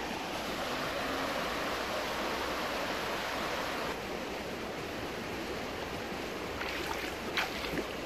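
Shallow river water flowing and rippling over stones: a steady rush. A few short sharp clicks near the end.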